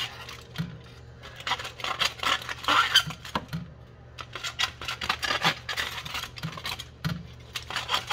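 A knife scraping and cutting into the scaly skin of a whole red snapper lying on aluminium foil, in bursts of quick scratchy clicks and foil crinkles, with a low steady hum underneath.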